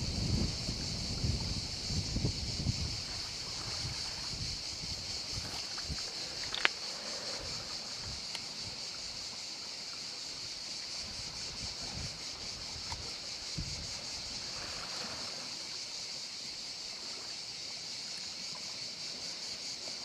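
Outdoor seaside ambience: wind buffeting the microphone for the first few seconds, then a steady high hiss over faint water sounds, with one sharp click about six and a half seconds in.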